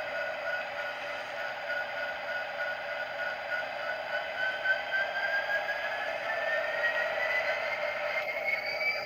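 Model freight train running on a layout: a rough, steady rattle of the cars on the track, with a thin electric-motor whine that slowly rises in pitch over the last few seconds.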